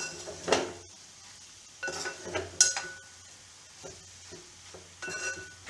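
Metal spoon stirring a thick mix of vegetables and grated coconut in a metal pot, scraping and clinking against the pot in a few short bursts with quiet pauses between. A couple of the clinks ring briefly.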